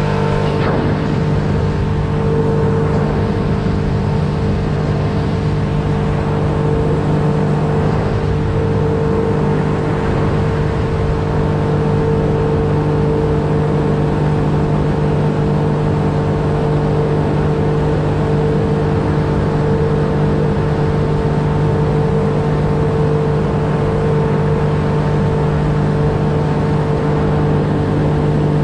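Outboard motor of a small aluminium boat running steadily at cruising speed, an even drone with no change in pitch, with water rushing along the hull.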